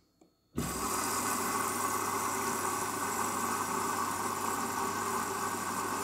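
Hoover front-loading washing machine running, a steady motor hum and drum noise, its drum full of excess detergent foam (suds lock). The sound cuts in abruptly about half a second in.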